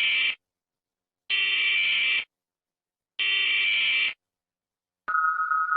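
Electronic emergency-alert alarm tones from a mock Indonesian EAS alert: one-second buzzing tones, about two seconds apart. About five seconds in, a steady single lower tone takes over.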